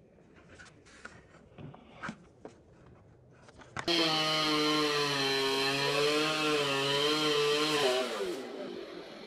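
Chainsaw running at full throttle, coming in suddenly about four seconds in, its pitch wavering slightly for about four seconds, then the throttle is let off and it winds down. Before it, only a few faint knocks.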